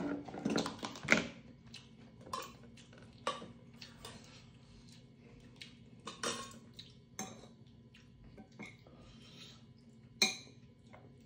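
Metal chopsticks and a spoon clinking and tapping against a stainless steel bowl and pot in a string of scattered taps. The sharpest clinks come about a second in and near the end.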